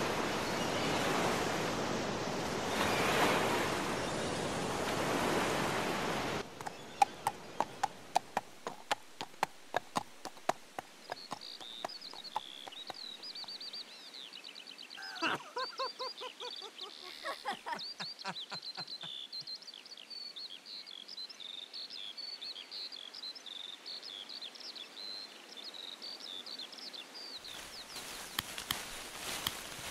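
Layered countryside ambience: a steady surf- or wind-like rush for the first six seconds that stops abruptly, then a scatter of sharp clicks, then birdsong chirping with a few lower calls, and rustling with clicks coming back near the end.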